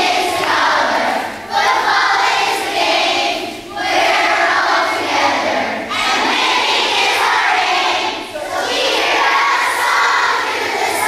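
A large group of young children shouting a chant together in unison, in phrases of about two seconds with short breaks between them.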